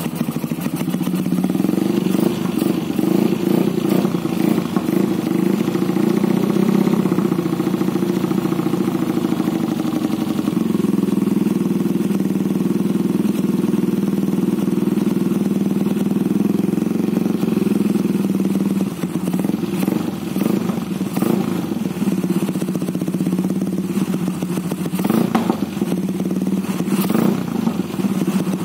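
Yamaha 135LC's single-cylinder four-stroke engine idling steadily on a cold start after two weeks standing, with a few short throttle blips near the end.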